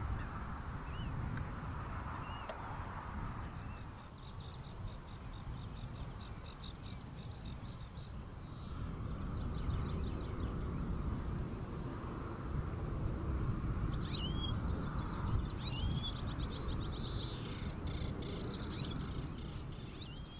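Small songbirds singing: a fast, high trill a few seconds in, then sweeping chirps and twittering in the second half, over a steady low rumble.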